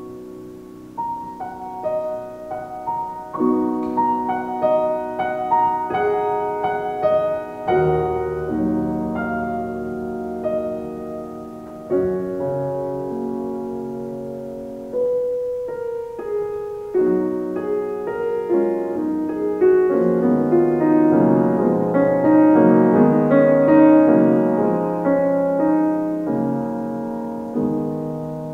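Solo piano playing a slow, quiet piece of chords and melody notes, which swells fuller and louder about two-thirds of the way through.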